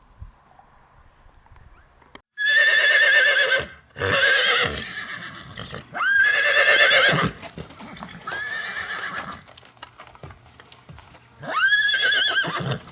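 An animal calls about five times, each call a loud, wavering, pitched cry of about a second, starting a couple of seconds in.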